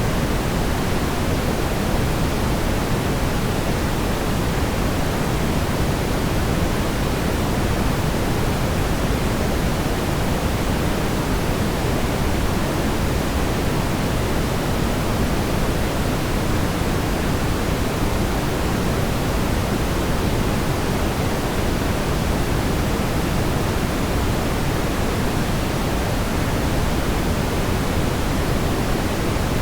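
Steady, smoothed brown noise: an even, unchanging rumbling hiss, strongest in the low end and fading toward the highs, with no rhythm or separate sounds.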